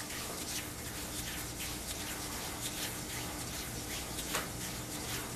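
Faint rubbing of hands massaging the face: soft, irregular brushing strokes over a steady room hiss.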